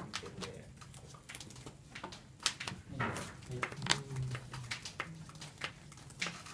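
Sleeved trading cards being handled on a playmat: a run of short, sharp clicks and taps as cards are picked up, gathered and squared into a stack in the hand.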